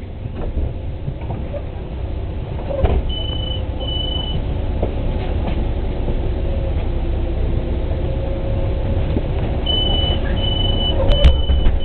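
City bus idling at a stop, a steady low engine rumble. Two short high beeps of the door warning sound about three seconds in, then a run of about four beeps near the end with a sharp thump as the doors close.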